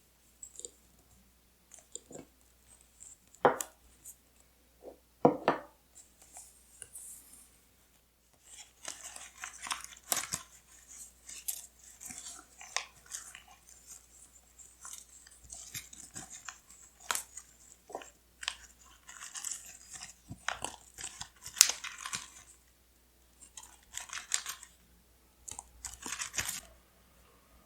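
Paper being handled and torn in short ragged stretches, starting about a third of the way in, after a few scattered light taps on the desk.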